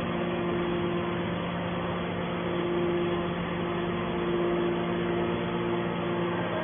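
Hydraulic scrap baler running: a steady machine hum with a higher tone that fades in and out every second or two.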